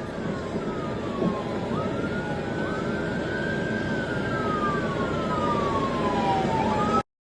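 Police siren wailing in slow rising and falling sweeps over steady vehicle and road noise. It cuts off suddenly near the end.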